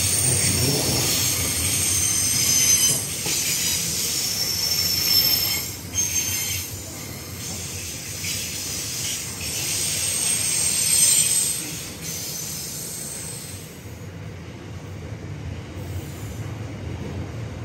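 A long freight train's open ore wagons roll past on curved track. Their wheels give a high-pitched squeal over a low rumble and rattle. The squeal dies away after about twelve seconds, leaving the rumble.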